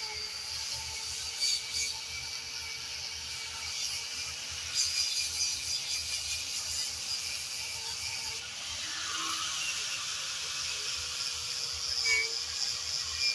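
Grinder with a wire brush running and scrubbing across a weathered wooden slab, a steady motor whine under rough scraping that surges louder a few times as it bites into the wood.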